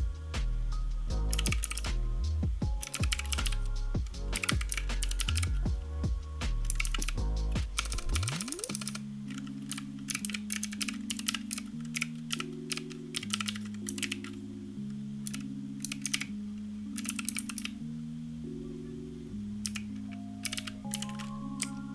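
Mechanical keyboard with Gateron Blue clicky switches being typed on, sharp clicks coming in rapid bursts, densest in the first few seconds and then in shorter runs. Background music plays underneath.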